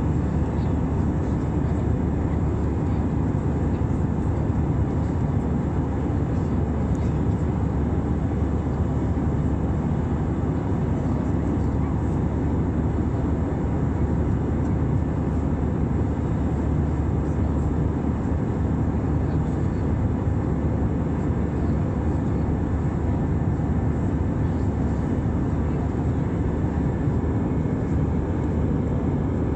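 Steady jet-engine and airflow noise heard inside an airliner cabin in flight: an even, unchanging rumble, heaviest in the low end.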